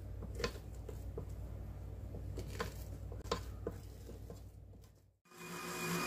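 A utensil scraping and tapping against a stainless steel mixing bowl in scattered knocks as thick whipped cream is knocked down off the sides. After a short gap near the end, the KitchenAid Professional 6000 HD stand mixer's motor starts up and runs with a steady whine, its wire whisk beating the cream toward the butter stage.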